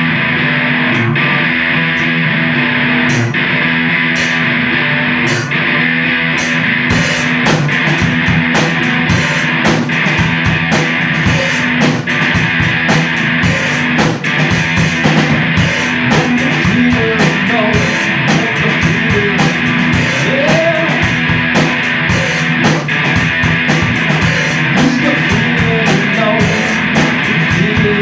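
Live rock band playing loud electric guitar with drum kit. The drums start with a few scattered cymbal hits and come in fully about seven seconds in.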